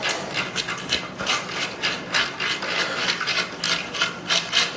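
Rapid, irregular clicking and rubbing of metal table hardware being worked into place and turned during assembly.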